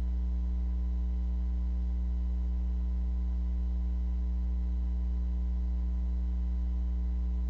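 Steady low electrical hum with a faint buzz of overtones above it, unchanging and with no other sound: mains hum.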